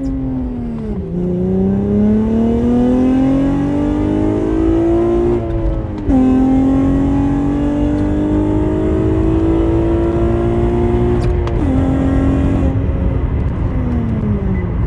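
Acura TL SH-AWD's V6 engine pulling the car away, its pitch climbing through the gears with three upshifts, each a sudden drop in pitch, then easing off near the end.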